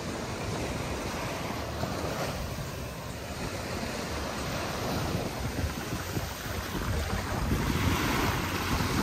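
Surf washing up on a sandy beach, with wind buffeting the microphone. The wash of the surf swells a little near the end.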